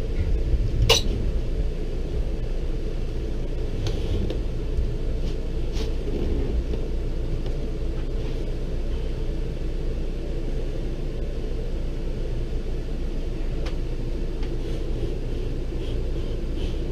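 Steady low rumble, with a few sharp clicks and knocks; the loudest comes about a second in.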